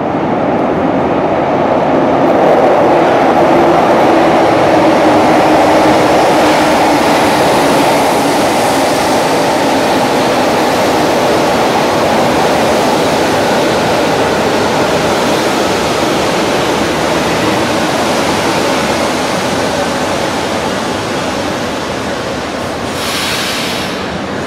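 Metro train running past in a tunnel: a loud, steady rumble of wheels on rails that slowly fades. A brief hiss comes near the end.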